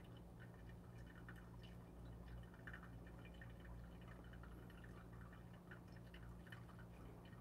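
Thin stream of hot water from a gooseneck kettle trickling faintly onto the coffee bed in a V60 pour-over dripper, keeping the water level up during the brew, over a low steady hum.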